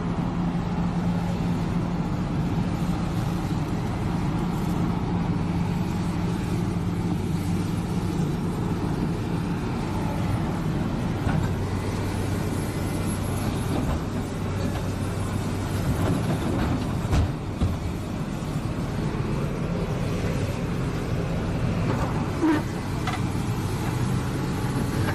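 Diesel engine of a SANY SY375H hydraulic excavator running close by at working revs, its low engine note shifting as the arm works, with a couple of short knocks in the second half.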